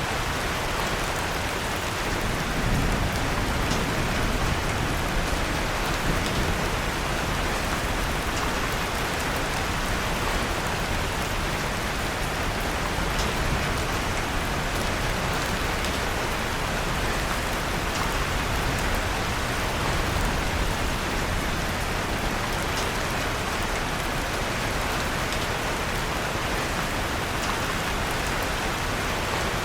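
Steady rain falling, mixed with the soft, scattered crackle of a wood fire in a fireplace.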